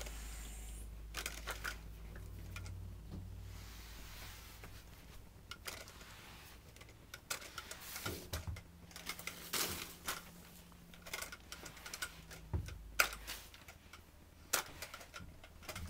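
Irregular small clicks, taps and rustles of things being handled and moved during cleaning up, over a faint low hum that stops near the end.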